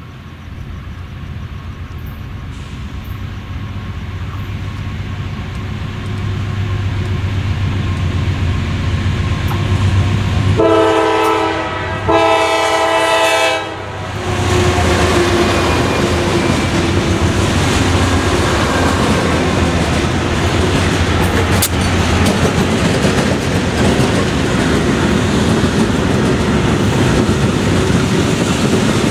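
A diesel-hauled freight train led by a GE CW40-8 approaches with a low engine rumble that builds steadily. About ten seconds in, the lead locomotive sounds its horn in two blasts, the second slightly longer. The locomotive consist and freight cars then pass close by, with loud, steady wheel-on-rail noise and clickety-clack.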